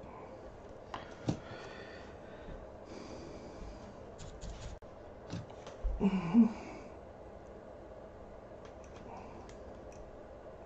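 Quiet workbench handling: a few light clicks and taps and some soft breathy hiss. A short voice sound from the person about six seconds in is the loudest thing; after it there is only low room noise.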